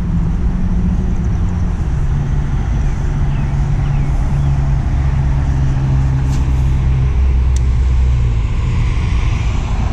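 Road traffic: motor vehicles running by, a low steady engine hum that is strongest through the middle.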